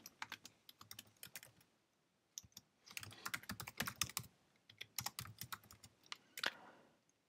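Faint computer keyboard typing: scattered single keystrokes, then two quicker runs of clicks about three and five seconds in.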